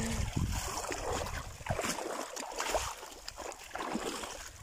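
Water poured out of a plastic bucket, splashing and trickling, with light sloshing of shallow water.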